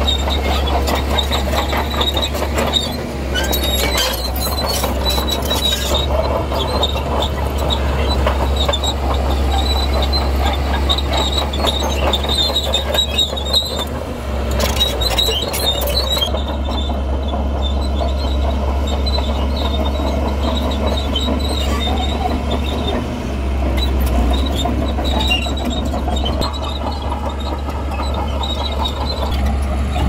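Steel crawler tracks of a heavy tracked earthmoving machine squealing and clanking over the steady low rumble of its diesel engine. The high squeal and rattling are strongest through the first half and ease off later.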